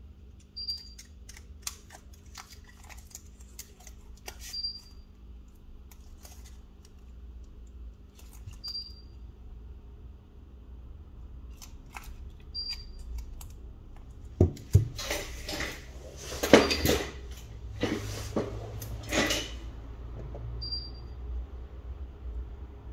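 Small tools and smartphone parts being handled: scattered light clicks and taps, with a run of louder clicking and rattling about two thirds of the way through.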